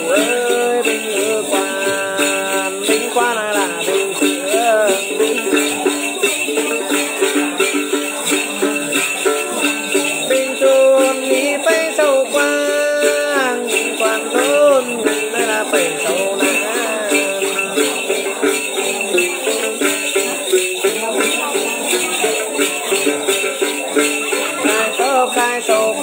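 Male voice chanting Then ritual song in a wavering melody, accompanied by a plucked đàn tính gourd lute, with a steady jingling in the background.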